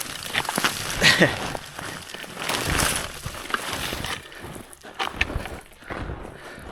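Hiking boots crunching on crusted snow, an irregular series of crisp crunching steps.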